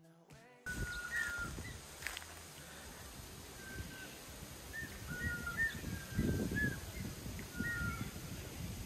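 Birds calling: a run of short whistled notes, some flicking upward, starting just under a second in. Beneath them is a low rumble and rustle, loudest about six seconds in.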